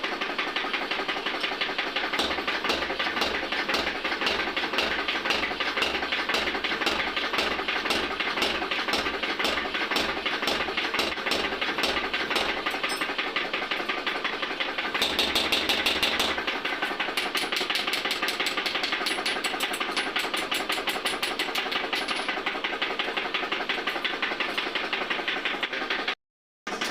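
Rapid, steady machine-paced hammering on metal, several blows a second, as a sickle blank is forged. It stops abruptly for a moment near the end.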